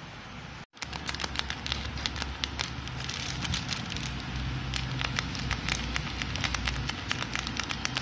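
Thin tracing paper crackling with many quick, irregular small ticks as hands work over a design on it, over a low steady hum. The sound cuts out for a moment just under a second in.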